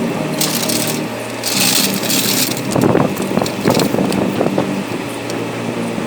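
Hydraulic jack being pumped to raise the rear of the vehicle: a run of metallic clicks and clanks about halfway through, after two short hissing rushes, over a steady background hum.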